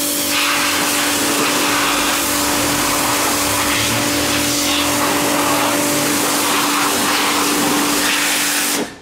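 Workshop air blower running: a steady, loud rush of air with a steady hum under it, cutting off abruptly near the end.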